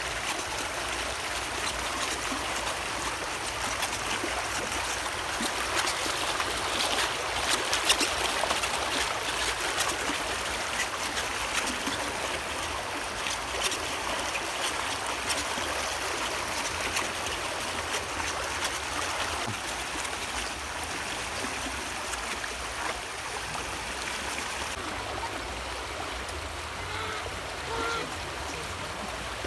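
Shallow river running fast over stones: a steady rushing of water.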